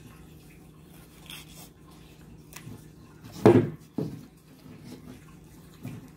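Fingers rubbing and picking at the rubber skin of a balloon frozen around a ball of ice. There is a short, louder sound about three and a half seconds in, and a smaller one just after.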